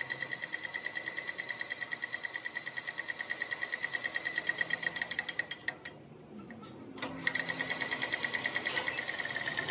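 Metal lathe running with a driveshaft spinning in its chuck: a steady high whine that pulses at a fast, even beat of about six a second. Past the middle the whine fades for about a second and a half, then comes back at full strength.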